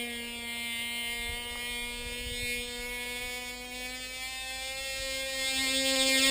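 Tiny Cox two-stroke glow engine of a model flying wing, running at full throttle in flight with a high, steady buzz. It fades a little in the middle and grows louder and slightly higher in pitch near the end as the plane comes back closer.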